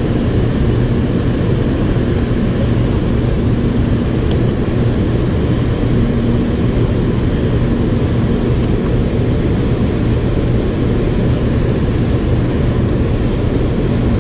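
Steady low rumble of water pouring through a dam's spillway gates and churning in the river below.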